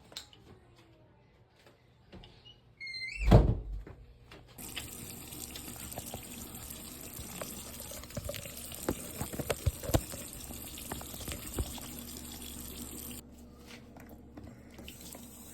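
Tap water running into a sink, a steady rush that starts about four and a half seconds in and cuts back about thirteen seconds in, with scattered knocks and clinks. Shortly before it starts there is a loud thump with a brief high squeak.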